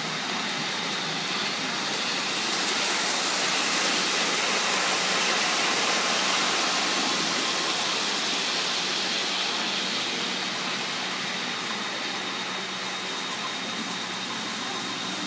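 O scale model trains running on their track, a steady noise of wheels and motors that swells as a locomotive and its passenger car pass close by, then eases off.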